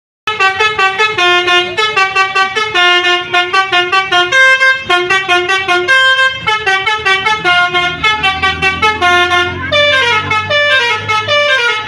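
Basuri 'telolet' multi-tone bus horn playing a fast melody of short, stepped notes, ending in quick runs of falling notes.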